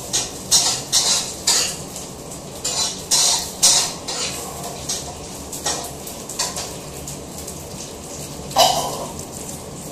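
Long fingernails scratching and picking at a small item held between the fingers, close to the microphone: irregular short scratchy rustles, one or two a second, the loudest near the end.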